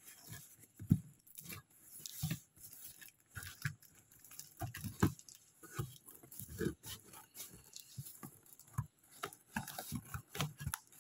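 Packing tape being peeled and torn off a taped cardboard parcel by hand, a string of irregular crackles, rustles and knocks of tape and cardboard.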